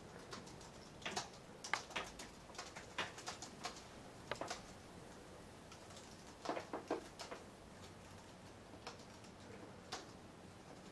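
Irregular light clicks and taps, some single and some in quick clusters.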